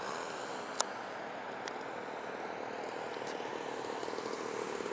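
Small petrol engine of a radio-controlled model plane, a Jodel Robin with a 30cc gas engine, running steadily on its landing approach and growing louder as it comes closer. A single sharp click just under a second in.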